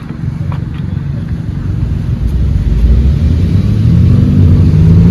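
A motor vehicle's low engine rumble grows steadily louder, and an engine note comes in near the end and rises slowly in pitch as it accelerates or approaches.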